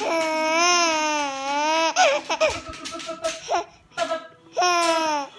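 A 7-month-old baby squealing with delight: a long, wavering, high-pitched squeal lasting about two seconds, a few short vocal sounds, then another squeal near the end that falls in pitch.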